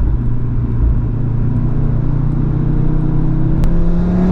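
Audi RS3's turbocharged 2.5-litre five-cylinder (DAZA) engine running steadily under way, its pitch creeping up toward the end as the car speeds up.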